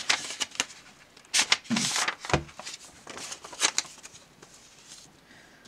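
Paper envelope being opened and its contents of small cards slid out by hand, rustling and crinkling in several short bursts, with a soft knock a little after two seconds in.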